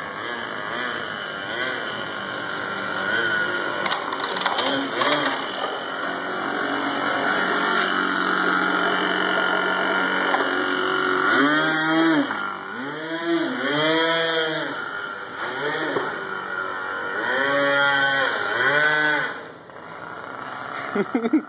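Small nitro engine of an RC airboat running, its propeller driving the boat through shallow floodwater. Through the second half it is revved up and down in quick repeated throttle blips, its pitch rising and falling about once a second, then it drops off sharply near the end.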